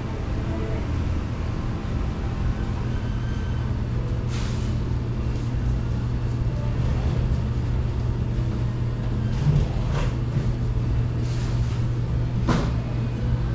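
Steady low mechanical hum, with a brief hiss about four seconds in and two sharp knocks later on.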